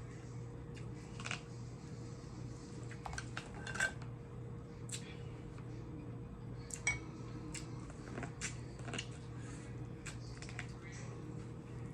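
Eating a seafood boil: scattered small clicks and taps of food and utensils against a dish, with chewing, over a steady low hum.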